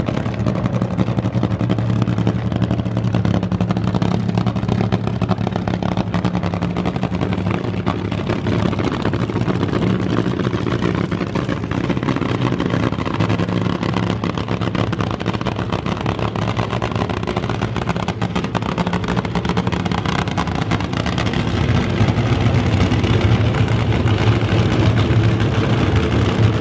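Drag cars' engines running at the starting line, a steady loud rumble that grows louder near the end.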